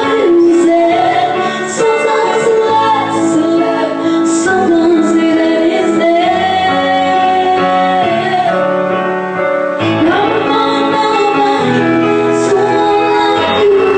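Female vocalists singing a slow ballad through microphones over instrumental accompaniment, with long held notes.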